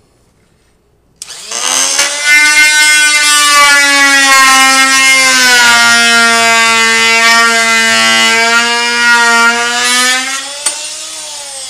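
Fein MultiMaster oscillating multi-tool starting about a second in and plunge-cutting through wooden door trim with a very dull blade: a loud, steady buzzing hum. Near the end it is switched off and winds down, falling in pitch.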